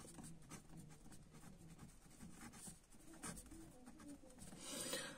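Faint strokes of a marker pen writing a word on paper.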